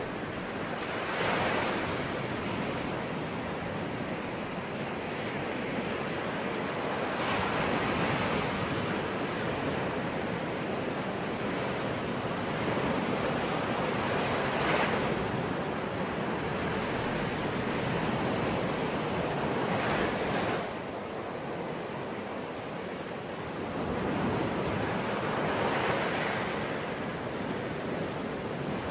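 Sea waves breaking on a shore in a continuous wash, a louder wave swelling and fading every six seconds or so.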